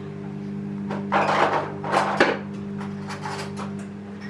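Kitchen items being handled and knocked about, as when fetching a sugar container from a cupboard: rustling scrapes and a few sharp knocks, most of them between about one and two and a half seconds in, over a steady low hum.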